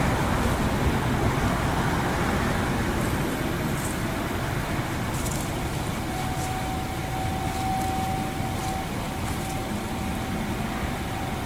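Steady outdoor background rush, with a faint distant outdoor warning siren holding one steady tone from about halfway through.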